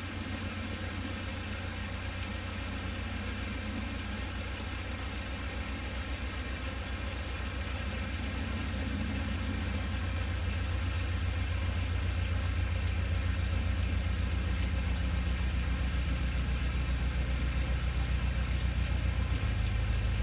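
Narrowboat engine running slowly with an even beat, growing steadily louder as the boat draws closer.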